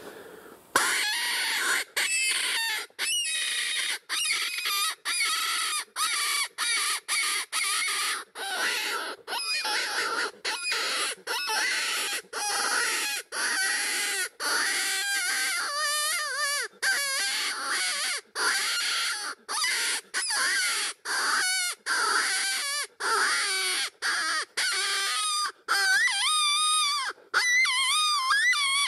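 Predator call sounding a long string of short, wavering, high-pitched cries with brief gaps between them, starting suddenly about a second in.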